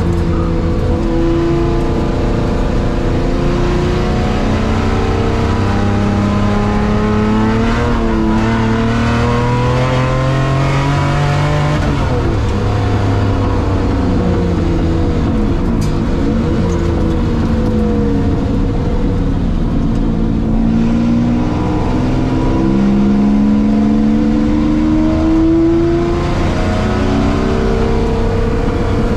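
The worked V12 engine of a Jaguar XJS race car at full racing speed, heard from inside the cabin. Its note climbs steadily under acceleration and drops sharply on lift-off and downshifts, several times over.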